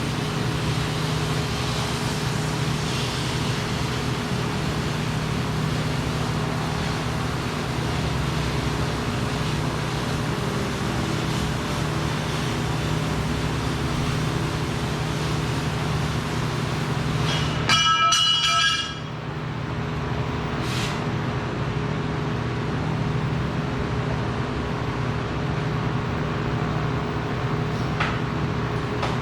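Steady machine hum with a hiss over it. About two-thirds of the way through comes a brief, louder high-pitched squeal lasting about a second, and after it the top of the hiss cuts out.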